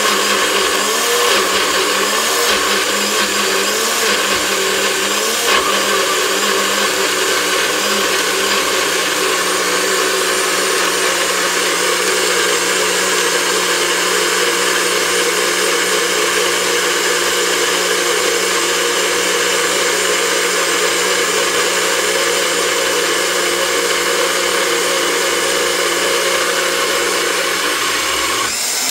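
Personal bullet-style blender motor running under load through a thick mix of apple, whole lemon with peel, ginger and habanero, which is a bit hard to blend. Its pitch wobbles up and down for the first few seconds, then holds steady, and the motor cuts off near the end.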